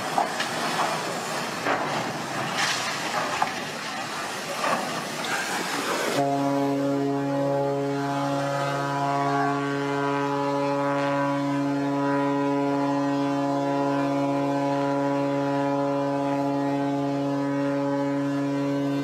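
A ship's horn sounding one long, steady blast of several tones together. It starts abruptly about six seconds in and lasts about thirteen seconds. Before it there is a noisy stretch with a few sharp knocks.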